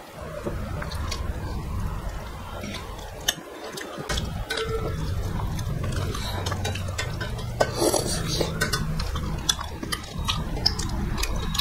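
Hands mixing and picking up rice and fish curry from steel plates: soft wet stirring with scattered light clicks against the metal, over a steady low hum.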